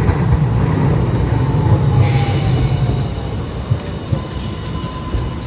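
A Hiroden Green Mover LEX low-floor tram running past close by on curved street track. A heavy low rumble from the car carries a slowly falling whine, and about two seconds in the wheels start to squeal on the curve.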